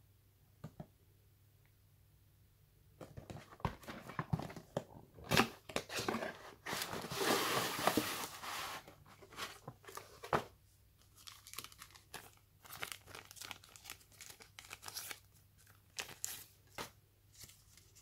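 A cardboard phone box and its packaging being opened and handled: a couple of small taps, then rustling, scraping and crinkling from about three seconds in. It is loudest for about two seconds near the middle and falls back to scattered light clicks and rustles in the second half.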